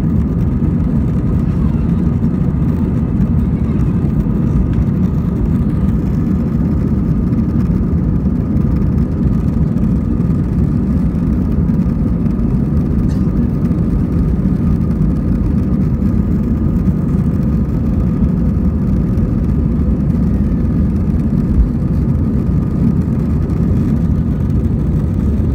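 Steady low rumble of an airliner's jet engines and airframe heard from inside the passenger cabin while the plane rolls along the ground toward takeoff, with a faint steady whine above it.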